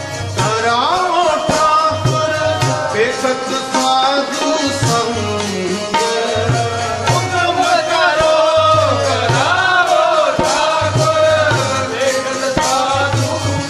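Sikh shabad kirtan: a man singing a hymn with a tabla beating a steady rhythm beneath the voice.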